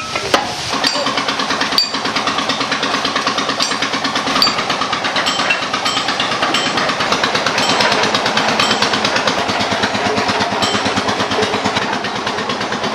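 Engine-driven line shaft turning a row of trommel drums in which steel bars grind gold ore with mercury into fine sand. The machinery runs steadily with a fast, even pulsing and a few sharp clanks.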